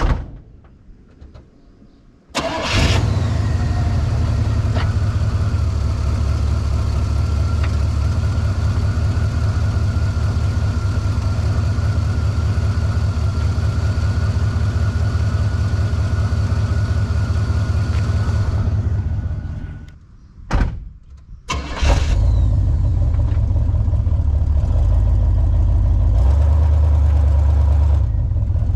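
1976 Cadillac DeVille's V8 engine starting about two seconds in and then idling steadily. It drops away for a moment around twenty seconds in, with two short sharp sounds, then runs steadily again.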